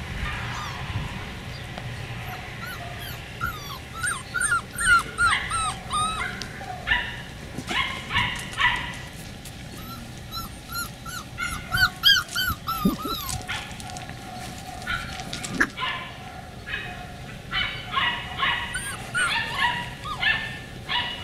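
Beagle puppies yipping and whining: runs of short rising-and-falling cries, with clusters of sharper yaps about a third of the way in and again near the end.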